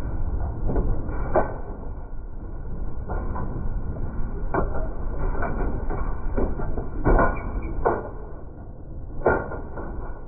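A machine running with a steady low rumble, struck by irregular knocks and clanks, the loudest a little after the middle.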